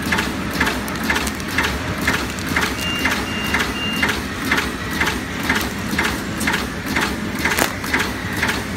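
TZC stand-up zipper pouch bag-making machine running in production at about 124 bags a minute. Its cycle beats out a regular stroke about twice a second over a steady low hum. Three short high beeps sound about three seconds in.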